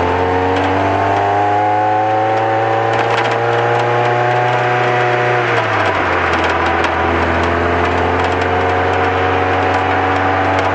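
Lotus Elise S2 engine heard onboard under acceleration: the revs climb steadily, a gear change about five and a half seconds in drops the pitch, then the revs climb again. Rough wind buffeting and crackle on the microphone run under it.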